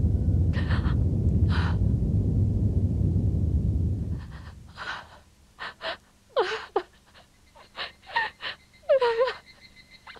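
A woman gasping in pain, with ragged breaths and a few strained cries that rise and fall in pitch. A loud low rumble fills the first four seconds and then fades away.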